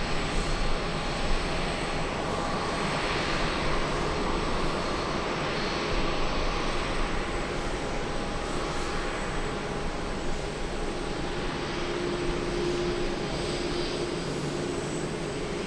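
Airbus A330 twin-jet engines at taxi power, a steady rushing hum with a thin, constant whine, as the airliner rolls slowly past.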